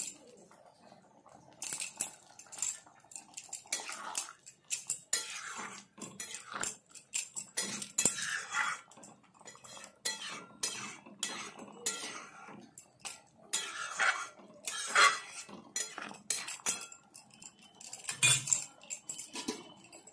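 A spatula scraping and clinking against a kadai, in irregular strokes, as it stirs a thick saag curry with potato pieces.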